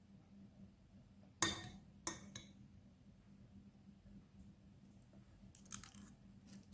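A few sharp, crisp clicks and clinks: two about one and a half and two seconds in, and a quick cluster near the end. They are typical of eating a meal with a spoon on a plate and biting into crisp fritters.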